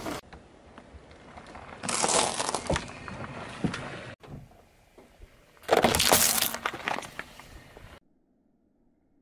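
Car tyre rolling over and crushing brittle objects on asphalt: a loud crackling crunch about two seconds in and another about six seconds in, each a rapid run of sharp cracks lasting roughly a second. Nearly silent for the last second.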